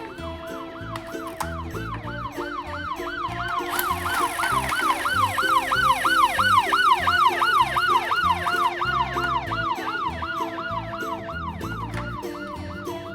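Emergency-vehicle siren in a fast rising-and-falling yelp, about three sweeps a second, growing louder to a peak about seven seconds in and then fading, over background music.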